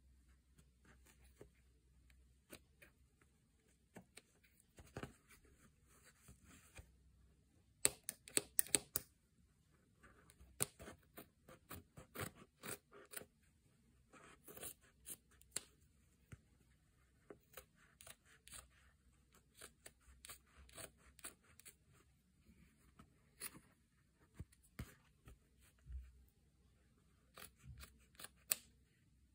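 Scissors snipping through velvet fabric: many short, sharp snips with pauses between, loudest in a quick run of cuts about eight seconds in.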